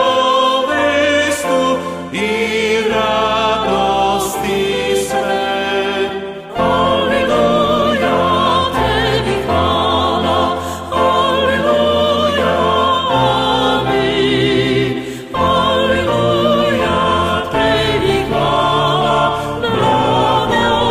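Voices singing a Christian hymn in Serbian with musical accompaniment, in phrases of a few seconds separated by short breaks.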